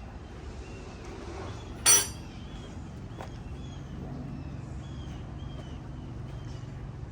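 A single sharp metallic clank with a short ring about two seconds in, then a fainter tap, as metal tools and parts knock together while a Kubota tractor's piston is taken apart. A steady low hum runs underneath.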